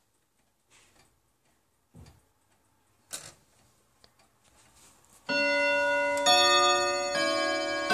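Kienzle pendulum wall clock ticking faintly, with a couple of clicks as its minute hand is turned to twelve. About five seconds in, the clock starts striking the hour: loud ringing strikes roughly a second apart that sustain and overlap.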